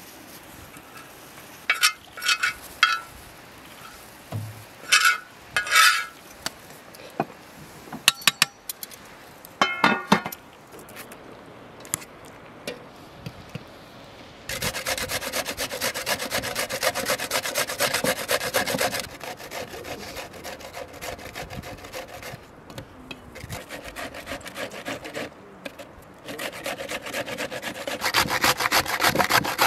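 Red cabbage being grated on a metal box grater: fast rasping strokes in spells from about halfway in, loudest near the end. A few short sharp sounds come in the first third.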